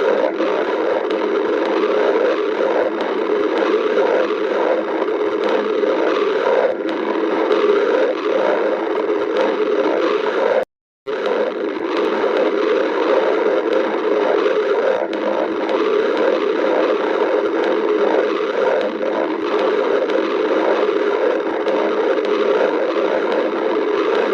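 Stomach growling: a continuous, irregular gurgling rumble, recorded close, that drops out completely for a split second about eleven seconds in.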